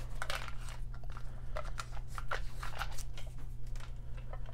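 Hands handling a small metal survival fishing-kit tin and its packaging: a dense run of irregular crunchy crinkles and scrapes.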